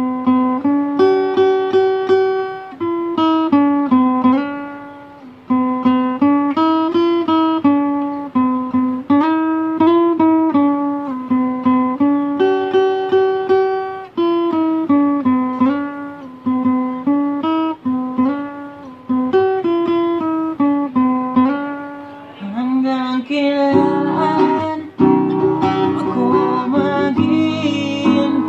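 Acoustic guitar played solo: a picked melody of single notes over bass notes, switching to strummed chords about 23 seconds in.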